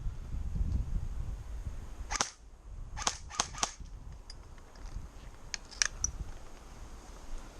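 Airsoft gun shots: four sharp cracks in about a second and a half, then a few fainter ones, over low rumbling.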